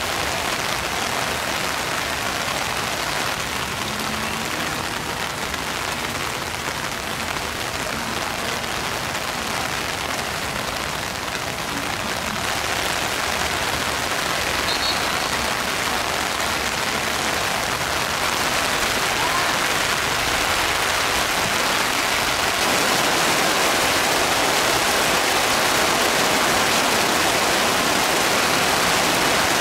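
Heavy rain pouring down in a steady hiss, growing a little louder in the second half.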